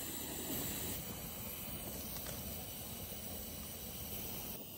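A steady hiss with no distinct events, a little quieter near the end.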